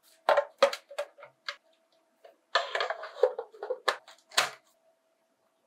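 Hard plastic clicking and knocking as a Miffy figurine's plastic display case is handled: several sharp clicks in the first second and a half, then a scraping slide as the case is fitted down over the figure, ending in two clicks as it seats.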